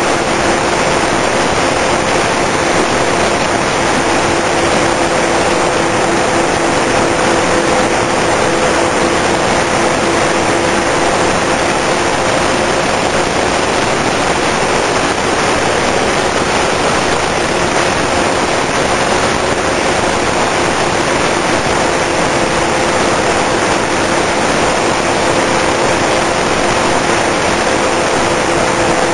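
Twin brushless electric motors and propellers of a Multiplex TwinStar II RC plane running steadily in flight, as two steady whining tones, under heavy wind rush over the plane's onboard camera microphone.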